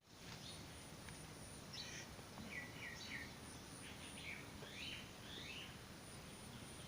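Faint outdoor ambience with birds chirping: a run of short, quick notes that glide up and down in pitch through the middle, over a low steady background noise.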